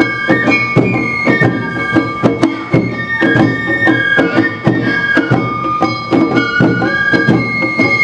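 Awa Odori accompaniment music played live: a flute melody stepping between held notes over drums and a metal gong striking a brisk, steady beat.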